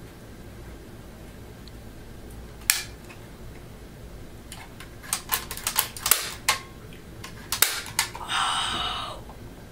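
Sharp plastic-and-metal clicks from a Crosman C11 pistol being worked by hand: one click, then a quick run of clicks about five to six and a half seconds in, and two more just before a short breathy voice sound near the end.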